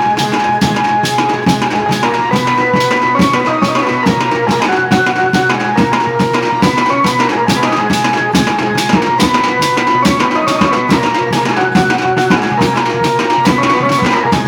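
Indian banjo band playing: a keyed banjo (bulbul tarang) carries a stepping melody over steady drumming, about four drum strokes a second.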